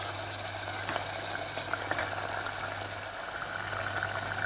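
Mutton and tomato masala sizzling and bubbling as it is fried down in a pressure cooker pot: a steady hiss with scattered small pops, over a low steady hum.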